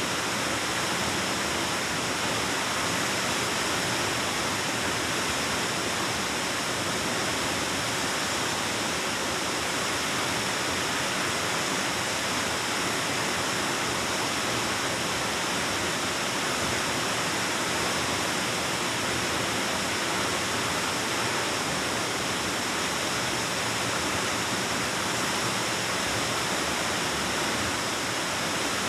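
Waterfall rushing, a steady, even roar of falling water that echoes in a rock cave.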